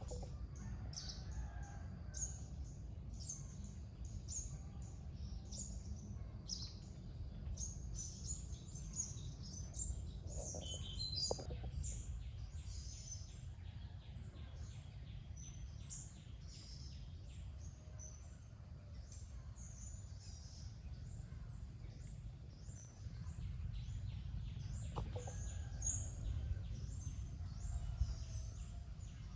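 Birds chirping and twittering in many quick high notes, over a steady low rumble.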